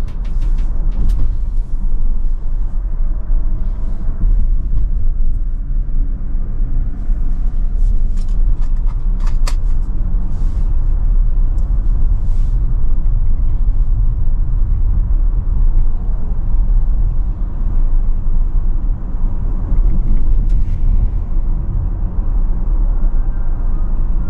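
Steady low rumble of road and tyre noise inside the cabin of a Tesla electric car driving, with a few faint clicks.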